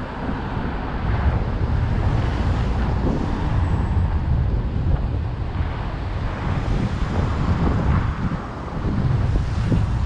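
Wind buffeting the microphone of a camera riding on a moving bicycle: a steady, rumbling rush, with faint road traffic beneath it.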